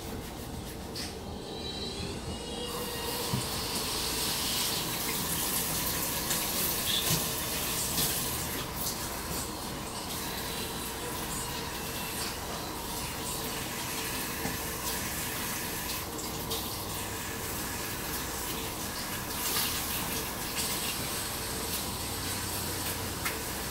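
Kitchen sink tap running steadily while a woman washes her hair under it, the water splashing over her hair and into the sink with frequent small splashes.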